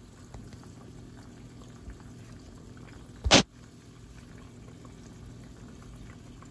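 Breaded cube steaks deep-frying in a pot of hot oil: a steady low bubbling sizzle with faint crackles. About three seconds in there is one short, loud thump.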